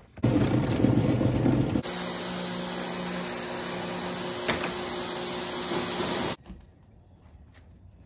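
Water rushing hard into a plastic bucket for about a second and a half, then a pressure washer running with a steady hiss of spray and a faint motor hum, cutting off abruptly about six seconds in.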